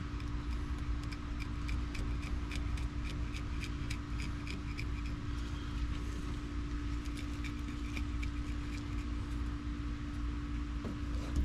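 Fillet knife cutting into a sail catfish along its back, a quick run of small crisp clicks and crunches as the blade works through skin and fin bones, then easing off near the end. A steady hum runs underneath.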